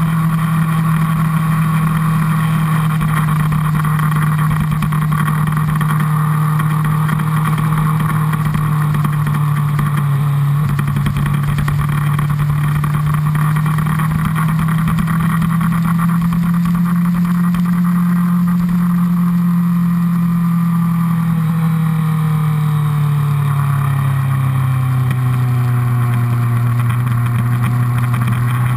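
Honda CBR1000RR inline-four engine heard onboard from the fuel tank, running at speed with a steady note. About three-quarters of the way through, the pitch falls over a few seconds as the bike slows, then holds steady at the lower note.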